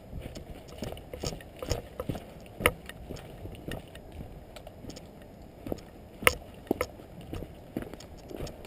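Irregular footsteps and the rustle of gear as an airsoft player moves, with two sharp, loud clicks about three and a half seconds apart.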